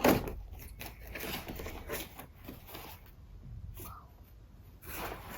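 Packaging being opened by hand: a run of crinkling and tearing rustles, loudest at the start.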